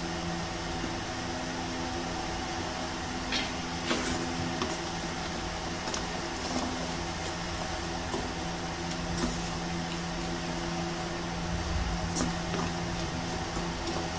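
A steady mechanical hum from a kitchen appliance or fan, with a few faint clicks and knocks of a wooden spatula against the frying pan as the meat is stirred.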